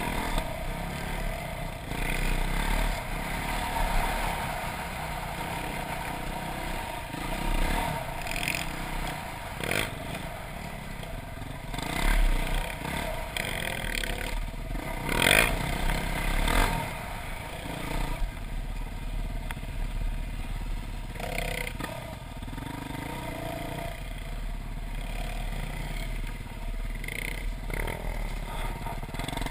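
Dirt bike engine heard from the rider's helmet camera, revving up and down with the throttle while riding off-road. Clattering knocks come over the bumps, the loudest about 15 seconds in.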